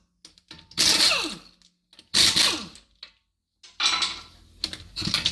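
Power tool with a 17mm socket undoing wheel bolts: three short bursts about a second and a half apart, each falling in pitch as it winds down after the trigger is let go.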